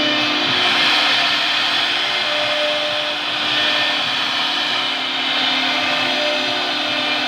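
CNC router running steadily, its spindle giving a constant whine over a noisy hiss of machining.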